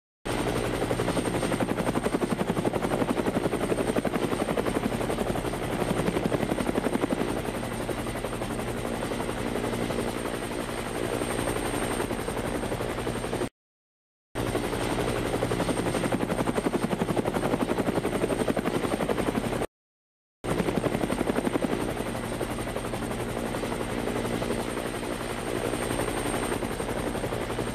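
Helicopter running steadily, with a fast, even chop from the rotor blades and a thin high whine over it. The sound cuts out completely twice, briefly, about 13 and 20 seconds in, then resumes.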